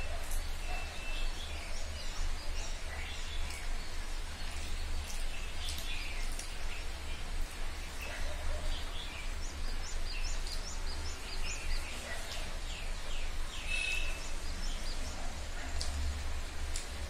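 Birds chirping and twittering over a steady low hum, with a quick run of chirps about two-thirds of the way through. Soft scattered clicks of eating by hand.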